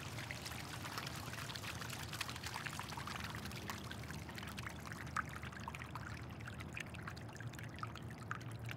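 A steady rush of pouring, splashing water, full of fine crackles.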